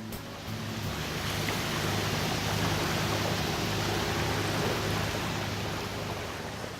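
A river motor ship's engine running with a low, steady drone under a constant rushing wash of water.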